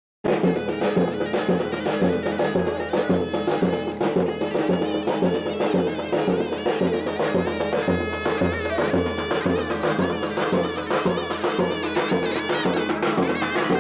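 Turkish folk music of davul and zurna: a shrill double-reed pipe plays a wavering melody over a steady bass-drum beat. It starts abruptly just after the beginning.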